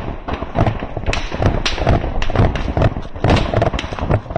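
Irregular thuds, knocks and rustling of a fighter moving through undergrowth: footsteps and gear knocking against a body-worn camera, several knocks a second.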